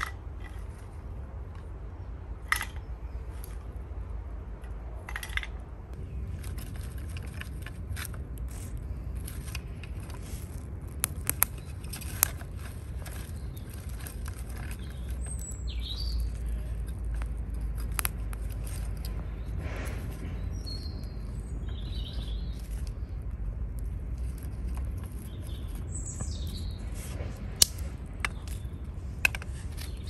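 Twig fire burning in a Swiss army aluminium volcano stove: scattered sharp crackles and snaps over a steady low rumble. Birds chirp briefly a few times in the second half.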